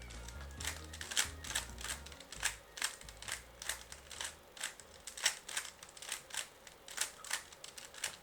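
3x3 Rubik's Cube being turned by hand: rapid, irregular plastic clicks of the layers snapping round, several a second. Low background music fades out about halfway through.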